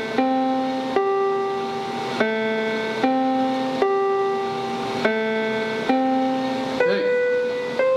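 Electronic keyboard playing a slow run of single held notes, each starting with a sharp attack, a new note roughly every second.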